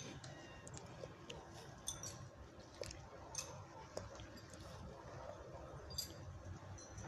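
Dry fallen leaves rustling and crackling, with scattered faint clicks and crunches.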